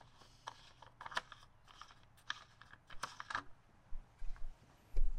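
Plastic coolant reservoir cap of a Ford Crown Victoria being twisted off by hand: a string of irregular small plastic clicks and taps, with a couple of dull thumps near the end.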